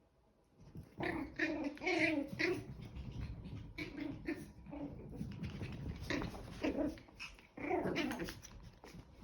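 Two chihuahua puppies play-fighting, growling in short pitched bursts that begin about a second in and come in clusters.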